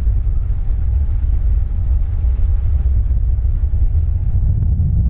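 Steady low rumble of a mastless sailboat motoring under its inboard engine, mixed with wind buffeting the microphone.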